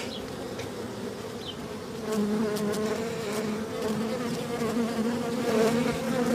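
Many honeybees buzzing around an open hive, a wavering hum that grows louder about two seconds in. The beekeeper takes the bees for unsettled, with the hive open and rain coming.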